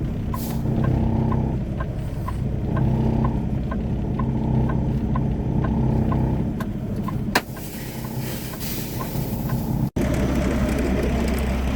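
Semi truck's diesel engine running steadily, with a light regular ticking about three times a second. About seven seconds in there is a sharp clack, followed by a few seconds of hiss.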